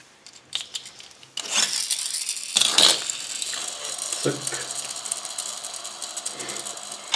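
Paper leaflet crinkling and rustling as it is handled and pressed flat on a plastic tray, a dense run of fine crackly ticks starting about a second and a half in. A sharp knock comes at about two and a half seconds.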